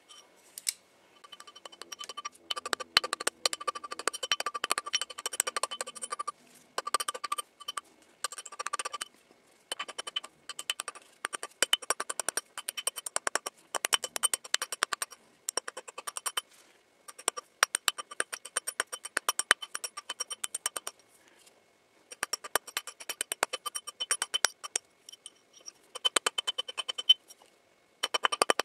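Rapid, light hammer taps, metal on metal, as a ring is worked on a steel rod mandrel: many taps a second in runs of one to a few seconds with short pauses, each tap ringing with a clear metallic tone.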